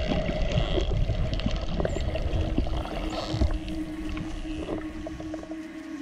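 Underwater recording of dolphins clicking rapidly, with a few brief whistles, mostly in the first half. Beneath them runs the steady hum of a boat engine carried through the water, growing stronger in the second half.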